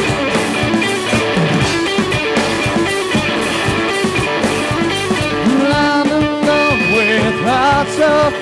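Band music, guitar-led, with no singing words. About halfway through, a held melody line with wavering pitch comes in over the accompaniment.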